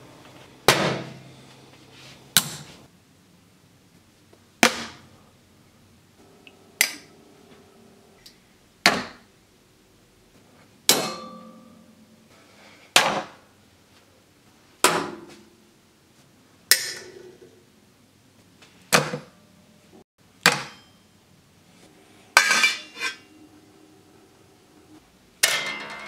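A small magnet-backed circuit-board timer is smacked against one metal surface after another: stainless steel, a box grater, guitar strings. Each smack is a sharp clack, some ringing briefly, and they come about every two seconds, a dozen or so in all. Each smack shorts the magnet contacts and switches the timer on.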